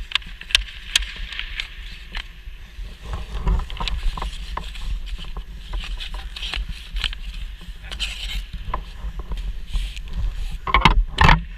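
Hockey stick blades clacking and scraping against the ice and a goalie's pads and glove in a crease scramble: a string of sharp irregular clacks, loudest in a burst near the end, over a steady low rumble.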